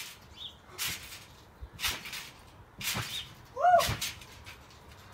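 Trampoline bounces, about one a second, each a brief swishing thump of the mat. The loudest comes about four seconds in, as the jumper lands a flip crouched on the mat, with a short rising-and-falling call just before it.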